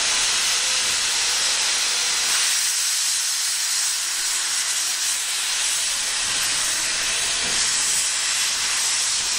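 Steady hiss of steam escaping from a steam locomotive standing on a turntable.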